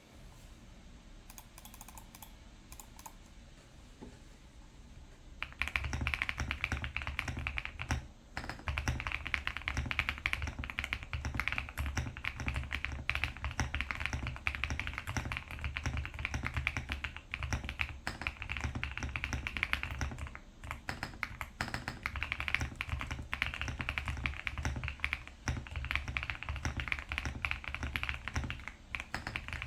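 Fast, continuous typing on a GMK67 mechanical keyboard with hand-lubed Gateron Smoothies linear switches, foam-filled with a tape mod and fitted with Cherry-profile keycaps. It starts about five seconds in after a quieter stretch and has a couple of brief pauses.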